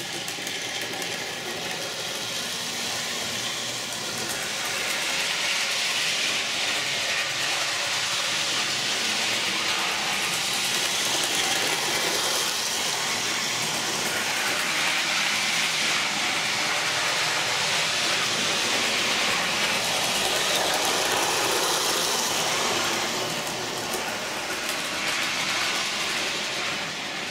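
Model train running around its track under the Christmas tree, a steady motor whir and wheel rumble on the rails that grows louder as it comes close and eases off near the end.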